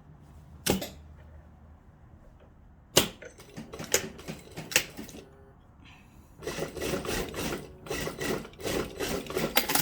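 A few separate clicks of the sewing machine and fabric being handled, then from about halfway through the sewing machine stitching in a fast run of ticking, sewing a new seam to take in the dress's waist.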